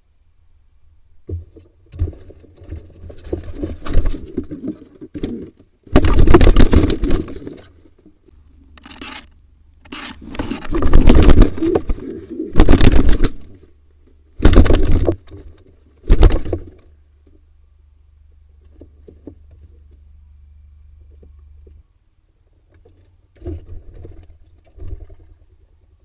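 A barn owl attacking pigeons inside a wooden nest box: several loud bursts of scuffling, wing flapping and knocks against the box walls, with quieter rustling of the nest litter before and after.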